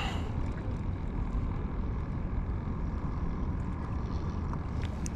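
Steady outdoor background noise: a low rumble with a soft hiss above it and no distinct events.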